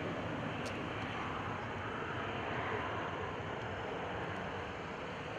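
Business jet's rear-mounted engines running as it rolls along the runway: a steady rushing noise that slowly fades. A brief tick sounds about two-thirds of a second in.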